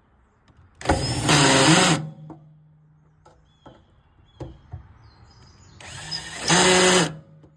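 Cordless drill driving screws in two short runs of about a second each, the second about five seconds after the first.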